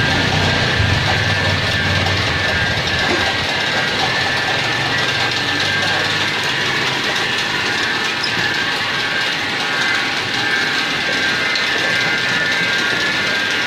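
PVC shrink-film printing machine running steadily: a continuous mechanical clatter of rollers and drive, with a steady high whine over it. A low hum underneath stops about seven seconds in.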